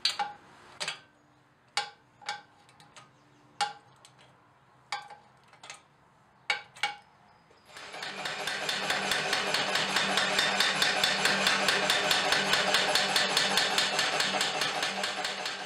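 Homemade anvil-mounted power hammer (the Hardy Hammer, a 12-pound ram set in the anvil's hardy hole): first about ten separate ringing metal blows, irregularly spaced. About eight seconds in it starts running continuously, the ram striking rapidly and evenly at roughly seven blows a second over a steady motor hum.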